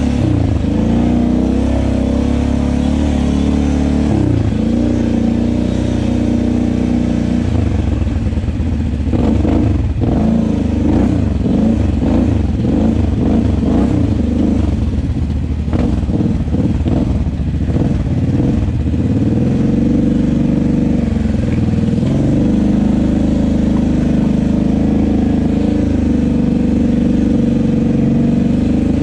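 Kawasaki KFX 700 ATV's V-twin engine running under way, with a long stretch in the middle of rapid throttle rises and falls before it settles back to a steadier pull.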